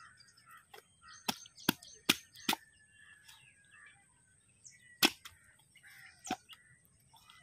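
A large knife chopping through a carp's head on a wooden chopping block, splitting it: four sharp chops about two a second, then two more spaced further apart, with faint birdsong behind.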